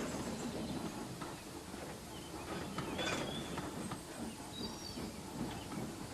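Outdoor background ambience: a few short bird chirps over a low rumble and scattered light knocks.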